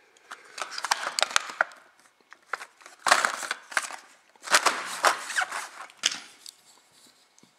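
Crinkly plastic packaging crackling as it is handled, in three spells of crackling.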